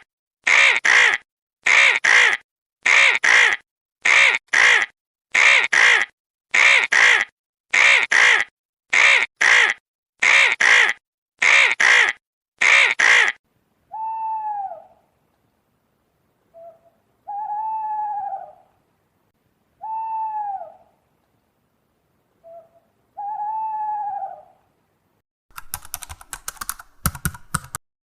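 Crow cawing: about a dozen loud, harsh double caws, one pair roughly every second. Then a second bird gives four quieter, clear, arching calls a few seconds apart, and near the end comes a short burst of rapid clicks.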